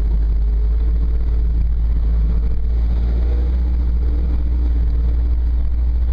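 Toyota FJ Cruiser's 4.0-litre V6 running at low trail speed, heard from inside the cabin as a steady low rumble with a faint engine hum over it.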